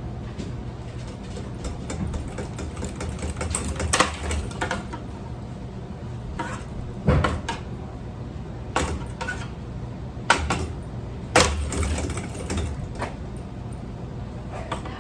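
Ceiling fan being knocked and broken apart: several sharp knocks and cracks, the loudest about 4 and 11 seconds in, over a steady low hum.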